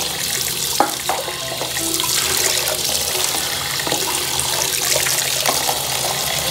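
Water running from a sink faucet and splashing into a plastic food container as it is rinsed out, with a few light knocks of the container about a second in.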